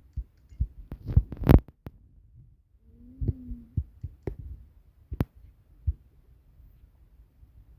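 A string of irregular dull thumps and knocks, the loudest cluster about a second and a half in, with a brief squeak about three seconds in and a sharp click a couple of seconds later.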